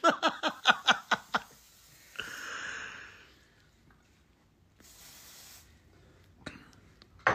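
A man laughing in a quick run of short bursts, then breathing out heavily and drawing a softer, hissing breath. A few faint clicks near the end.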